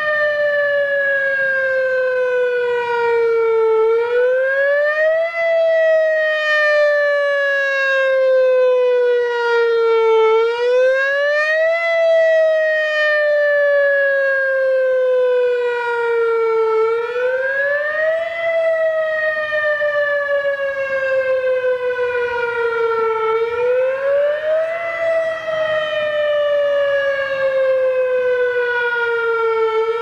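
Whelen WPS-3016 electronic rotating siren sounding a wail tone. Its pitch rises quickly, then falls slowly, repeating about every six and a half seconds without a break.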